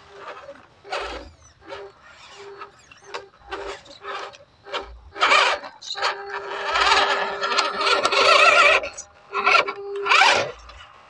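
Electric motors and gearboxes of small RC crawler trucks, an MN78 Cherokee and a WPL C24 pickup, whining in short bursts as they crawl up a dirt trail, with a longer, wavering stretch of whine in the second half.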